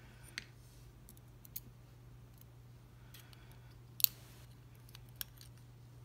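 Small, sharp metal clicks and ticks of tweezers working the driver pins and springs out of a Thirard Trafic 6 dimple lock's cylinder housing, a few faint ones and one louder click about four seconds in.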